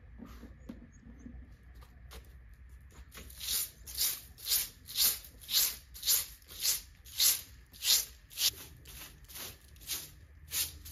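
Straw broom sweeping a concrete yard: rhythmic swishing strokes, about two a second, that grow louder a few seconds in and fade again near the end.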